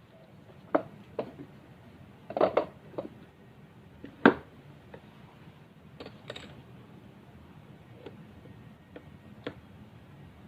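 Irregular light knocks and clicks of wooden parts and hardware being handled on a workbench, about eight in all, the loudest about four seconds in.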